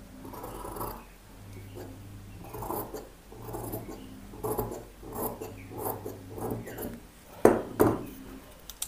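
Large tailor's shears cutting blouse fabric: a run of crisp snips every half second or so as the blades close through the cloth, then two louder sharp clicks near the end.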